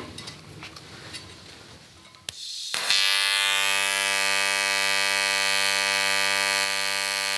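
Aluminium TIG welding arc from an EWM welder, struck just under three seconds in after a click, then a steady, loud electric buzz. The current is deliberately far too high (about 200 A), enough to burn through the plate.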